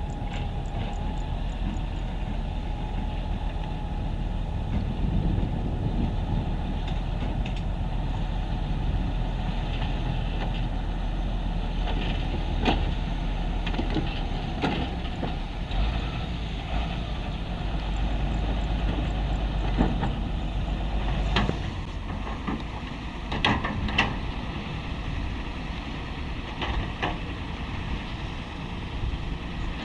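Heavy construction machinery with diesel engines running steadily, with sharp metallic clanks now and then. The low rumble changes about two-thirds of the way through.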